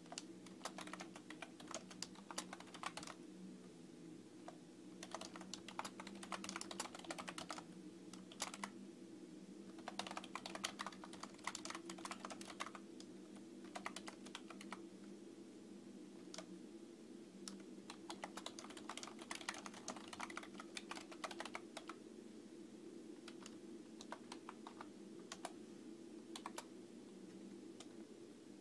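Typing on a computer keyboard: quick runs of key clicks in bursts of a few seconds, broken by short pauses, over a steady low hum.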